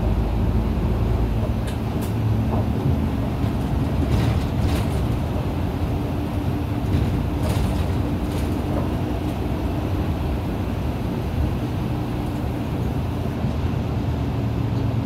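Inside an Isuzu KL-LV280N1 diesel city bus under way: steady engine drone and road noise, with a few brief rattles from the cabin.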